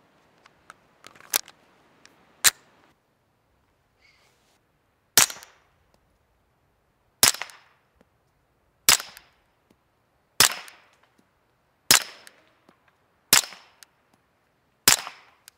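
Pistol fitted with an Energetic Armament Sonus 9 silencer firing seven single suppressed shots, about one every one and a half seconds, each a sharp crack with a short tail. Before the shots, a magazine goes into the pistol with a few light clicks and two sharper metallic clacks.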